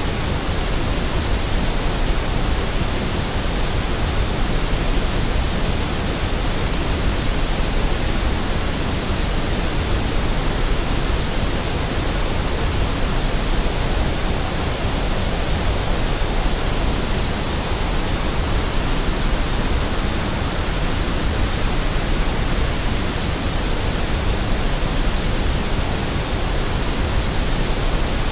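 Steady white noise: an even, unchanging hiss with no tones, clicks or breaks.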